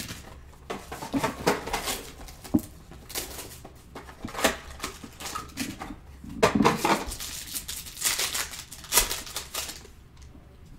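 Trading-card box and packs being opened and handled: irregular clicks, taps and rustling of cardboard and wrappers.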